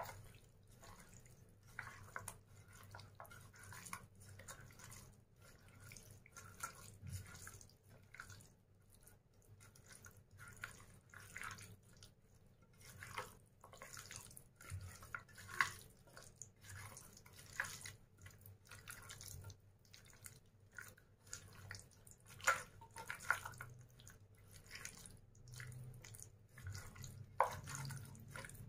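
Hand squeezing and mixing raw chicken in a thick yogurt and spice marinade in a steel bowl: faint, irregular wet squelches and small clicks.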